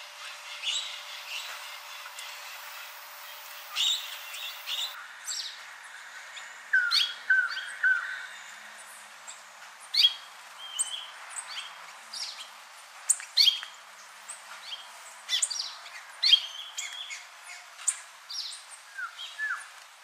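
Several small birds chirping and calling: many short, sharp chirps scattered through, with a few lower down-slurred notes about seven seconds in. The background changes about five seconds in.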